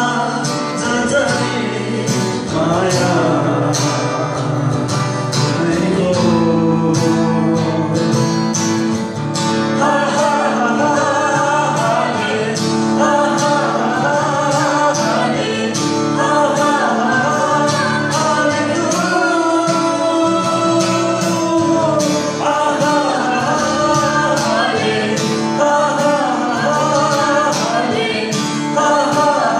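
A man and a woman singing a Nepali worship song together to a strummed acoustic guitar, amplified through microphones.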